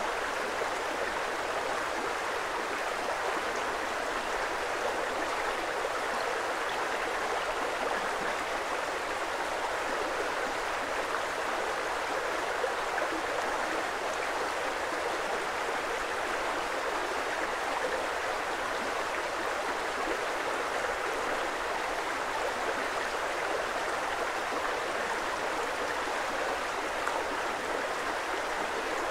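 Creek water flowing steadily, an even, unbroken rush and babble with no change in level.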